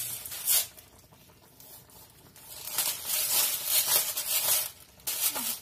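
Hand pepper grinder being twisted over a pan of soup, crunching peppercorns with a rough, crackly grinding noise. It comes in bursts: a short one about half a second in, a long one from about halfway, and a brief one near the end.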